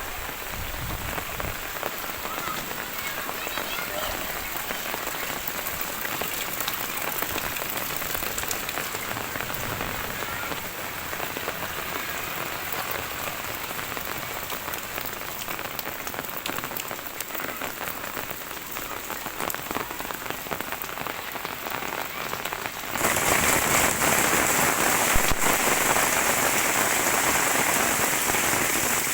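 Heavy rain falling steadily in a dense hiss of drops; about three-quarters of the way through it suddenly becomes louder and brighter.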